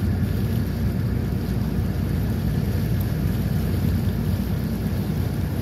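Steady low rumble of a boat under way, its engine noise and wind on the microphone blending into one even drone.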